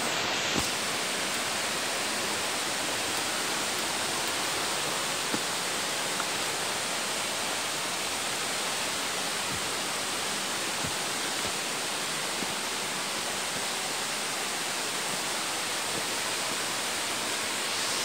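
Steady rush of a headwater stream running over rocks, with a few faint knocks.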